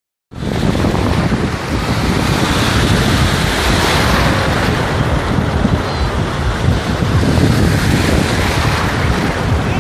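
Small waves breaking and washing around in shallow sea water, with wind buffeting the phone's microphone as a steady rumble.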